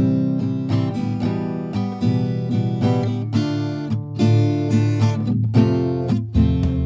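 Background music: a gentle acoustic guitar tune with notes plucked at a steady pace.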